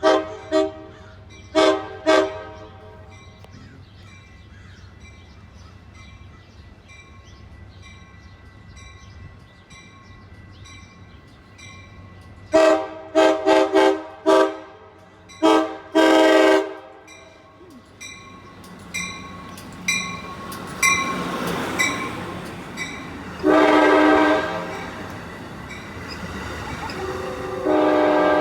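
Amtrak Pacific Surfliner train horn playing a horn show, a multi-tone chord. Two blasts at the start, then a rapid string of short toots about halfway through ending in a longer blast. Then the train approaches with a rising rumble, gives more short toots and a long blast, and starts another long blast near the end.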